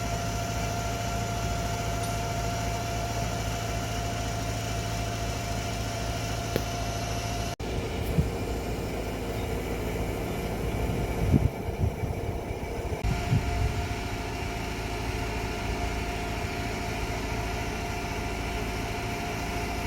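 An engine running steadily at idle, with a sudden break about seven and a half seconds in and a cluster of louder knocks and clunks a little past halfway.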